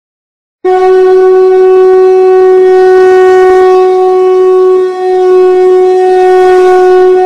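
Conch shell (shankh) blown in one long, steady horn note that starts just under a second in, with a brief dip about five seconds in.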